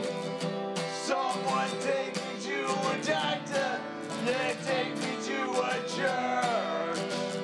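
Outro music led by strummed acoustic guitar, playing steadily throughout.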